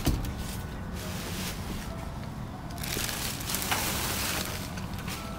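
Plastic bags and cardboard rustling and crinkling as they are shifted about in a dumpster, with a sharp knock at the start and a louder stretch of rustling about three seconds in, over a steady low rumble.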